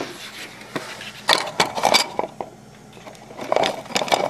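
Two bursts of sharp clicking and knocking, about a second in and again near the end: a plastic childproof cap on a bottle of cooking oil being pushed and twisted without coming open.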